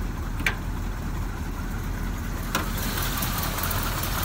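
1977 Chevrolet C10/C20 pickup's V8 idling steadily, running smoothly with no rattling or odd noises. Two short clicks sound over it, about half a second and two and a half seconds in.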